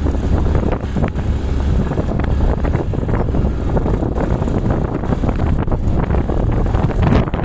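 Wind buffeting the microphone of a camera on a moving motorbike or scooter: a heavy, steady low rumble with irregular gusty crackles, covering the vehicle's own running noise.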